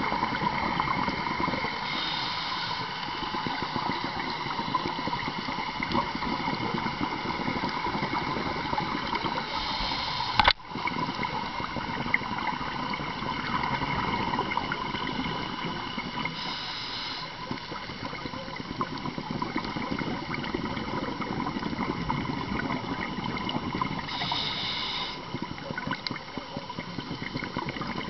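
Underwater ambience picked up by a camera in its waterproof housing: a steady crackling hiss of water with a faint hum under it. Short bursts of higher hiss come every several seconds, and a single sharp click sounds about ten seconds in.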